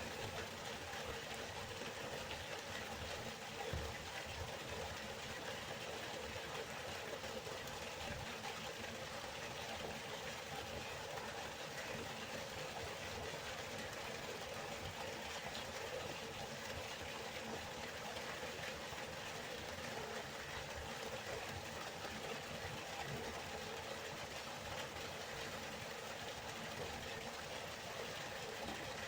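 Waterfall: a steady, unbroken rush of falling water with a low rumble beneath it.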